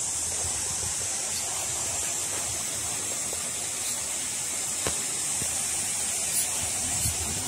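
A steady high-pitched hiss, with low rumbling from wind on the microphone and a few faint clicks in the second half.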